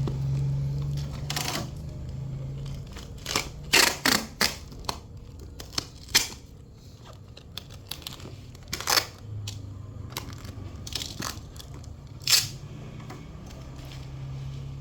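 Bubble wrap being handled and wrapped around a small package, crinkling and rustling in a series of short, sharp bursts over a low steady hum.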